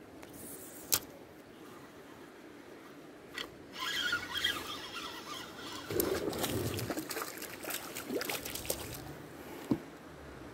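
Water splashing at the surface as a fish hooked on a fishing line thrashes, with a spinning reel being wound; a sharp click about a second in.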